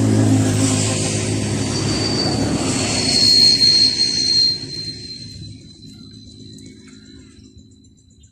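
A motor vehicle passing close by, loud at first with a steady low engine hum and a high thin whine in the middle, then fading away over the last few seconds.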